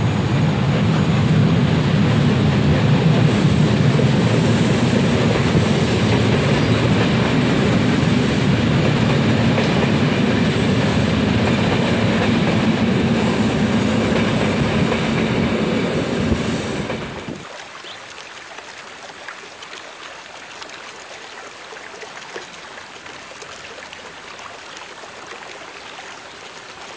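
A passenger train hauled by an electric locomotive passes close by, loud for about seventeen seconds. It then cuts off suddenly to a faint, steady rushing noise.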